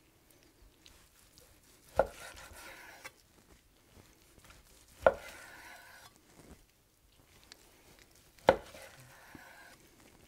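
Long knife slicing a smoked brisket across the grain on a wooden cutting board: three sharp knocks of the blade meeting the board, each followed by about a second of the blade drawing through the meat and bark.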